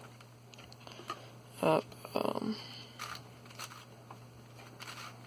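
Faint plastic clicks and a short scrape from the layers of a 6x6 speed cube being turned by hand, with a short spoken word about one and a half seconds in.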